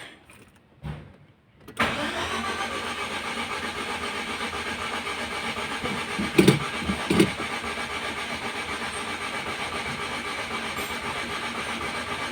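Mitsubishi Galant GTI's 4G63 engine being cranked by the starter for about ten seconds with a steady pulsing rhythm, not catching: a hard start. Two louder thumps come about midway through the cranking.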